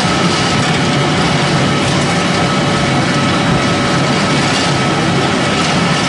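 Pellet mill and its discharge conveyor running steadily as pellets drop onto the conveyor: a loud, even machine noise with a faint steady whine.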